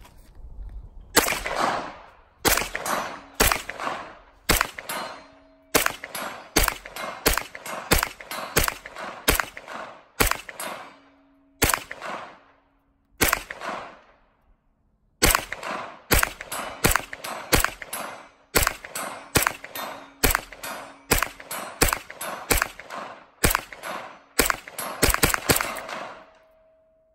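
MP5-style roller-delayed gun fired in quick single shots, a long string of about one to two shots a second with a brief pause partway through, each shot ringing out after the crack.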